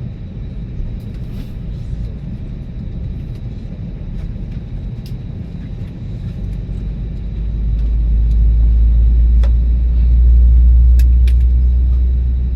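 Steady low rumble inside an Airbus A320neo cabin with a few light clicks. About seven seconds in, a much deeper rumble swells up, peaks, and eases off again near the end.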